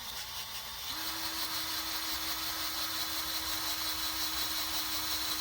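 Drill spinning up about a second in and then running at a steady speed, boring out a broken A/C compressor bracket stud with a 1/8-inch bit.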